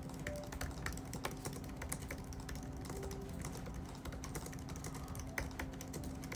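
Typing on a laptop keyboard: quick, irregular key clicks, with a faint steady hum underneath.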